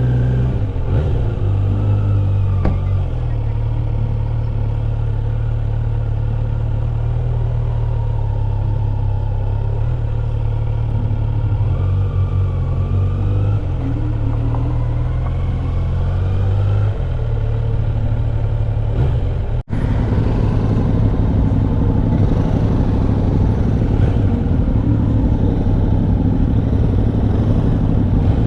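Kawasaki Z900 SE's inline-four engine running at low speed, its pitch rising and falling a little. About twenty seconds in the sound cuts out for an instant and comes back as a rougher, steadier engine rumble.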